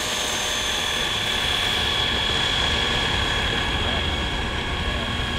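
Four electric ducted fans of a radio-controlled Airbus A380 model whining at a steady high pitch during the takeoff roll, after spooling up, with a low rumble underneath.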